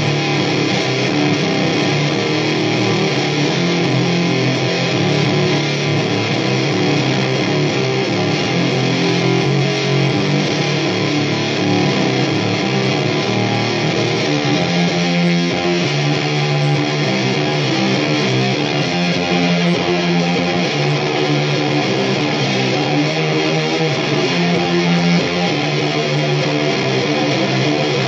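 Electric guitar played loud with a noisy, droning tone, repeating a heavy riff of low chords.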